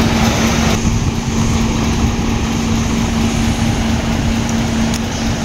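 Isuzu Forward truck's 6HQ1 inline-six diesel engine idling: a steady low rumble with a constant hum running over it.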